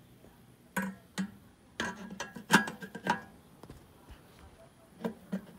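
Metal clinks and knocks as a Roccbox propane burner's slotted steel housing is handled and fitted against the pizza oven's steel burner mount. A scatter of sharp strikes comes in bunches, the loudest about two and a half seconds in.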